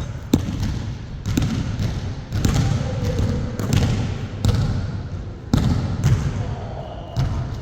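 A basketball being dribbled on a hard floor, bouncing about once a second.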